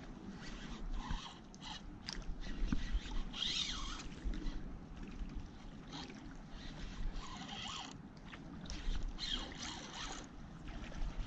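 Spinning fishing reel being cranked in several short rasping bursts as line is wound in, over a steady low rumble of wind on the microphone.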